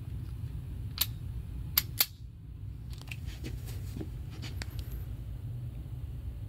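Steady low hum of an indoor shooting range's ventilation. Three sharp clicks come about a second in and just before two seconds, followed by a few fainter ticks.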